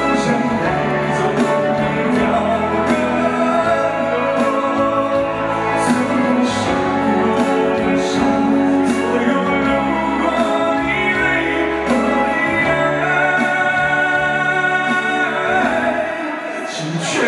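A man singing a ballad-style song into a handheld microphone over musical accompaniment with a regular beat; the music dips briefly near the end.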